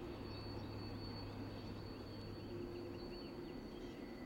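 Quiet outdoor ambience: a steady low hum and a faint steady high-pitched whine, with a few faint bird chirps.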